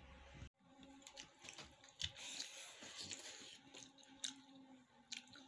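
Faint eating sounds: chewing and soft scattered clicks as fingers work rice on a plate, over a faint steady hum.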